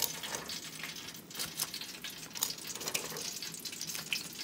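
Hot oil in an electric deep fryer sizzling in a steady hiss, with scattered sharp crackles.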